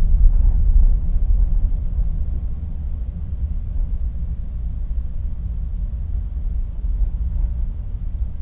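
Low, steady rumble of a ship under way at sea, heard from inside a cabin at a porthole, with waves washing against the hull; it swells a little louder in the first second.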